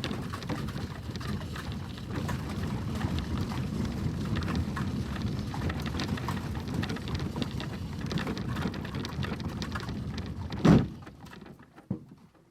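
Horse-drawn stagecoach with four horses on the move: a dense, steady rumble crowded with small clicks from the wheels and hooves. A loud low thump comes about ten and a half seconds in, and then the sound fades away.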